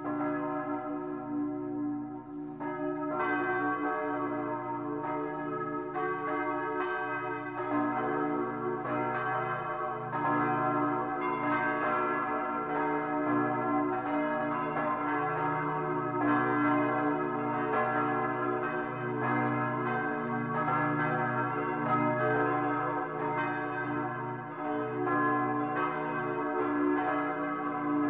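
Bells ringing, struck again and again so that each new strike overlaps the long ring of the ones before.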